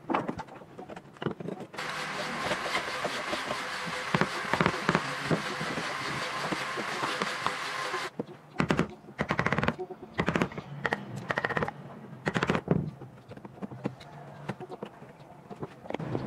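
Hand wood chisel cutting into an old chair rail: a run of sharp, irregular knocks and cracks as the blade bites and chips split off. For several seconds in the first half a steady rushing noise sits under the knocks, starting and stopping abruptly.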